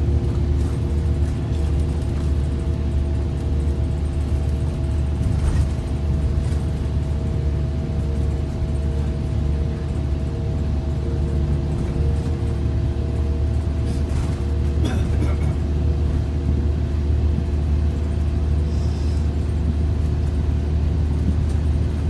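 Steady low rumble of a bus's engine and tyres at highway speed, heard from inside the passenger cabin, with an even drone of a few fixed tones over it.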